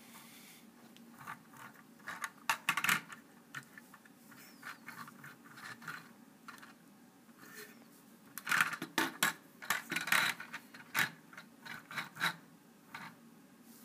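Plastic Lego bricks of a small model truck clicking, rattling and scraping as it is handled by hand, in a short cluster about two to three seconds in and a longer, louder run from about eight and a half to twelve and a half seconds in.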